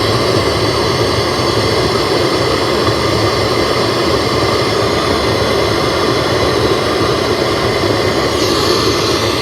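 Mini tower speaker in FM mode playing loud, steady radio static hiss from an untuned FM band. The level shows its repaired volume control now passes full sound. The hiss cuts off suddenly at the end.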